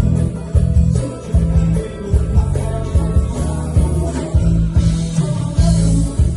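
Live band music played loud through a PA, with a heavy bass beat of about two pulses a second under guitar and voices.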